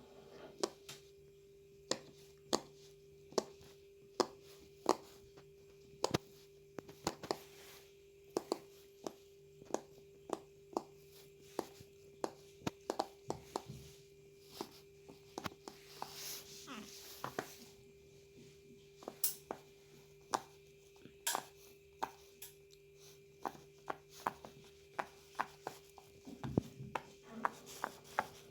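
Irregular sharp clicks and taps, about one or two a second, of small objects being handled, over a faint steady hum.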